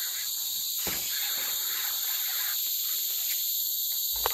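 Steady, high-pitched shrill chorus of forest insects, several pitches held at once, with a single brief knock about a second in and another near the end.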